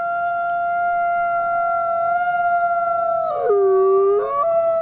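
A grey wolf howling: one long, steady high note that drops to a lower pitch about three seconds in and rises back again a second later.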